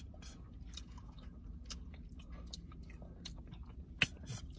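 Quiet mouth sounds of people eating soft frozen custard: scattered small lip smacks and mouth clicks, with one sharper click about four seconds in, over a low steady hum.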